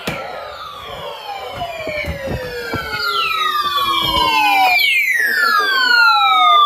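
Several overlapping siren-like tones, each sliding down in pitch, with new ones starting higher about three and five seconds in and growing louder toward the end.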